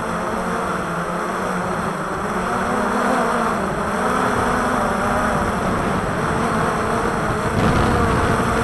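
Walkera Tali H500 hexacopter's electric motors and propellers humming steadily, the pitch wavering slightly, with strong wind buffeting the microphone.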